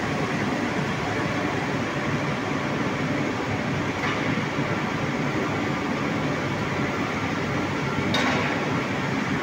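Hot steel rolling mill running, with a red-hot bar passing through the roll stands: a steady, dense mechanical noise from the mill's rolls and drives. There is a brief sharp metallic knock about 8 seconds in.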